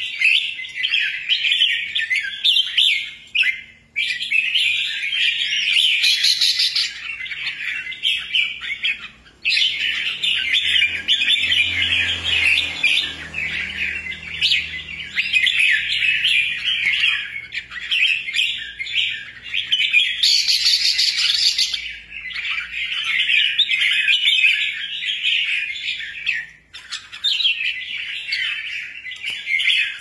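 Caged albino red-whiskered bulbul singing in long runs of rapid, chattering notes, broken by short pauses about 4, 9 and 26 seconds in.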